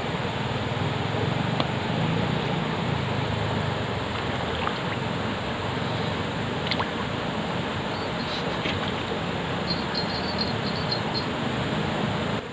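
Steady rush of flowing stream water, with a few faint high chirps near the end.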